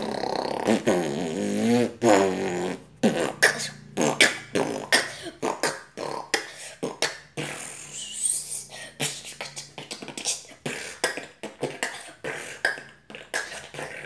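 A boy beatboxing. He opens with a wavering hummed vocal line for about three seconds, then goes into a fast run of percussive mouth kicks, snares and clicks.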